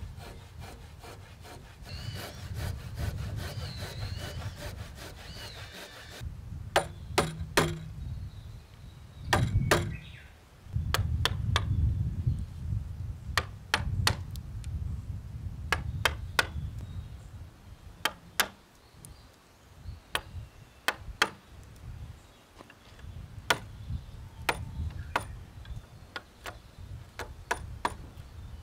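Handsaw cutting an old chestnut beam in quick, even strokes for about the first six seconds. Chisel work on the beam end follows: sharp wooden knocks, often in pairs a fraction of a second apart, every second or two, with softer paring and scraping between.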